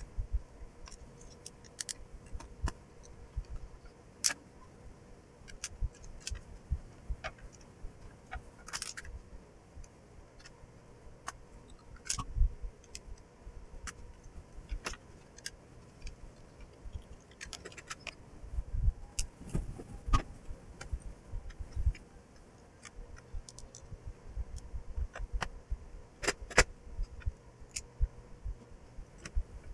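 Irregular small clicks and taps of a screwdriver and screws on the plastic housing and keypad circuit board of a landline telephone being reassembled, with a few louder knocks as the parts are handled.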